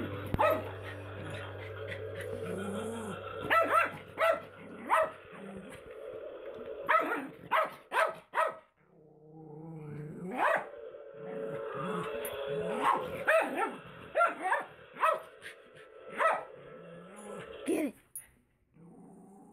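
Small dog growling at length, breaking into about a dozen sharp barks spaced a second or more apart: alarm barking at a skull mask lying on the floor.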